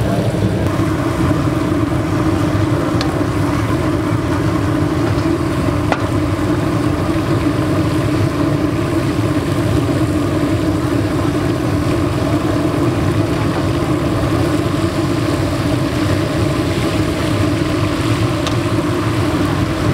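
Green chillies deep-frying in a large wok of hot oil, sizzling, over the steady roar of a gas burner.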